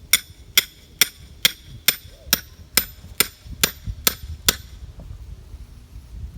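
A hammer striking a metal rebar stake, driving it into the ground: eleven ringing metal-on-metal blows at a steady two or so a second, stopping about four and a half seconds in.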